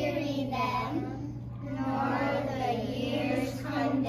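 A class of young children's voices singing together in unison.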